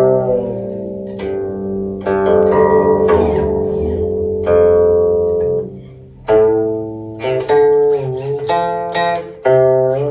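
Guqin played solo: a series of plucked notes that ring and fade, several of them bent with sliding pitch glides.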